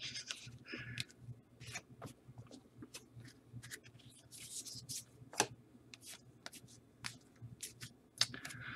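Faint, scattered clicks and brief rustles of football trading cards being handled and flipped through by hand.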